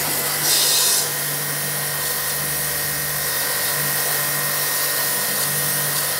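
Aimex D7 1800-watt electric pressure washer running, its jet blasting mud off a car's plastic wheel arch liner: a steady hiss of spray over the low hum of the motor and pump. It starts suddenly and is a little louder in the first second.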